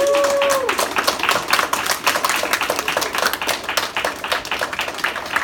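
A roomful of children clapping steadily and unevenly, with one voice holding a short cheering note at the start.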